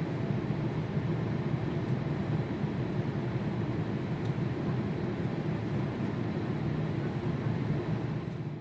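Steady low jet rumble from a Mitsubishi F-2 fighter's single turbofan engine, holding an even level and fading out at the end.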